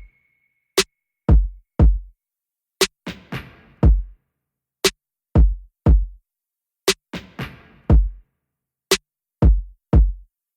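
Electronic background music with a drum-machine beat: sharp hits and deep kick drums in a pattern that repeats about every two seconds.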